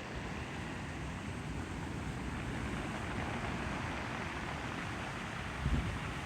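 Pacific Ocean surf: a steady roar of breaking waves, with wind buffeting the microphone near the end.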